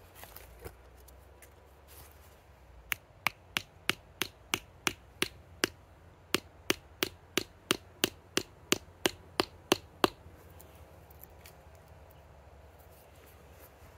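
A small hammer tapping on a short section of log: about twenty light, sharp blows at roughly three a second, with a brief pause midway, stopping a few seconds before the end.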